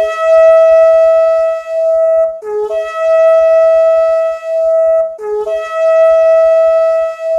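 Three loud shofar (ram's horn) blasts, each opening with a brief lower note that leaps up to a long held higher note.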